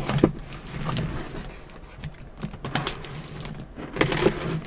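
Cutting and working open a mailed package: scattered clicks, scrapes and crinkles of the packaging, with a louder rustling burst near the end.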